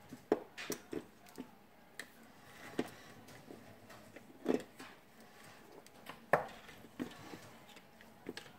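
Scattered light clicks and taps of small hand tools and plastic drill-housing parts being handled on a workbench, with a brief scrape about halfway through.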